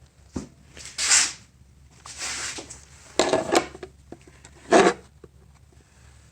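Engine-bay parts being handled and moved out of the way: a series of separate knocks, clunks and scraping rustles of hard plastic, the loudest about a second in and near the end.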